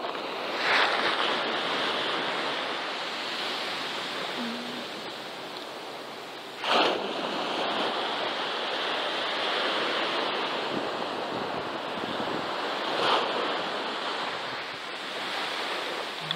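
Surf washing on the shore, with a wave breaking about every six seconds.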